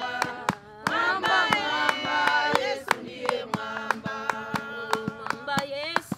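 A group of women singing a Swahili hymn together, with steady hand-clapping at about three claps a second. Partway through the singers hold one long note.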